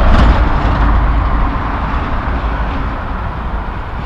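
Semi-truck pulling a dry van trailer passing by, its engine rumble and tyre noise loudest at first and fading over the next few seconds as it moves away.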